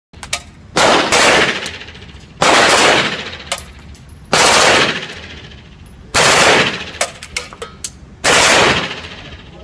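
Heckler & Koch submachine gun firing on full auto: six short bursts, each under a second, about every two seconds, the first two close together, with a few single sharp cracks between them. Each burst rings on in the small enclosed range booth and is loud enough to overload the recording.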